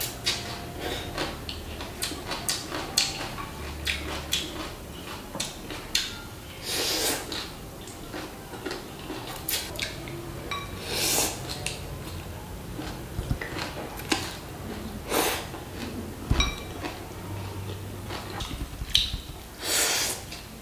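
Close-up eating sounds: a woman slurping glass noodles in several drawn-in gulps, about four seconds apart, between chewing and the click of wooden chopsticks against a glass bowl.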